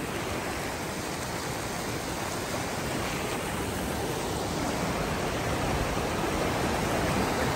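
Stream water rushing steadily at a trail water crossing, growing gradually louder.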